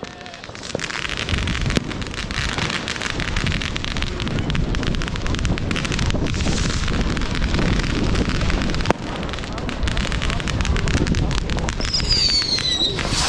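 Fireworks going off close by: a steady hiss thick with fine crackling and scattered pops, like a ground fountain or crackling battery. Near the end several whistles slide down in pitch, from whistling fireworks.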